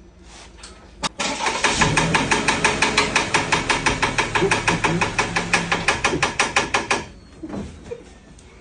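Engine turning over with a loud, even knocking, about six knocks a second, starting after a click and stopping suddenly some six seconds later: the knock in the engine that is being checked.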